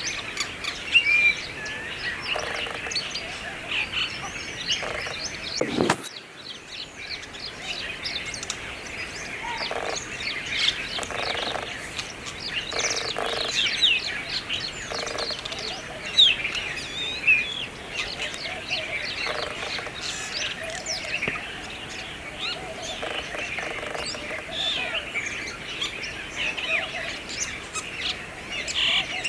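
Brahminy starling singing: a busy, varied stream of short chirps, whistles and notes sliding up and down, with a sharp click about six seconds in.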